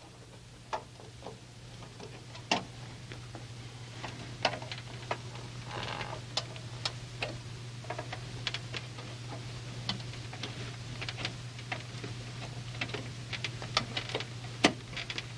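Irregular small clicks and taps of a PCI modem card being handled and rocked into its motherboard slot, with a short scrape about six seconds in, over a steady low hum.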